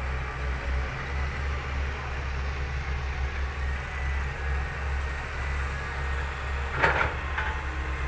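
Fiat-Hitachi 200.3 crawler excavator's diesel engine running steadily as the machine digs and swings. A sharp knock comes about seven seconds in, with a smaller one just after.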